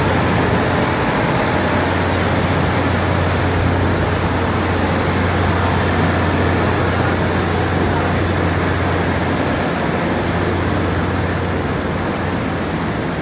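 Taiwan Railway EMU500 electric multiple unit running along the platform: a steady rumble and rush with a low hum, easing off slightly near the end.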